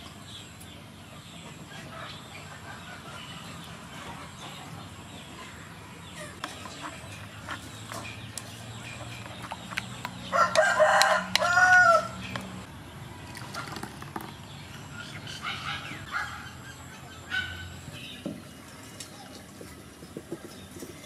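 A rooster crowing once, loudly, about halfway through, with a few shorter, quieter fowl calls a few seconds later. Light clicks and scrapes from a wooden spoon stirring sauce in a clay mortar sound underneath.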